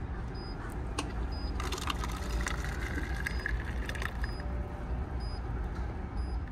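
Tea pouring from a cup-vending dispenser into a paper cup after a button click, the pour rising in pitch as the cup fills, for about two and a half seconds. Under it runs the steady low drone of the ferry's engines.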